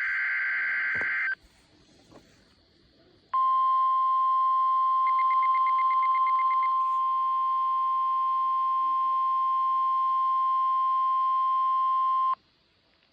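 NOAA Weather Radio test alert heard through an Icom receiver's speaker: the tail of a harsh digital SAME data burst ends about a second and a half in, and after a short pause of hiss the steady 1050 Hz warning alarm tone sounds for about nine seconds and cuts off suddenly. A brief rapid beeping lies over the tone a couple of seconds after it starts.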